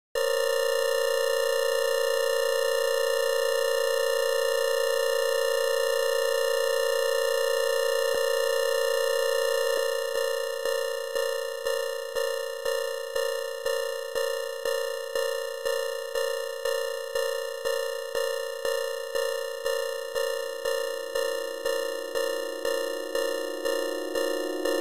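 Electronic music: a sustained synthesized tone rich in overtones starts abruptly. From about ten seconds in it pulses in a steady rhythm about twice a second, and a second, lower tone fades in near the end.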